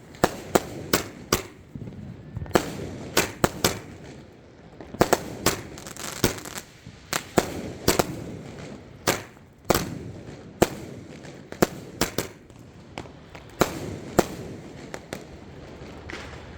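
A 60-shot, 1-inch repeater firework cake firing its shots as a string of sharp bangs, unevenly spaced about one to three a second, each with a short echo.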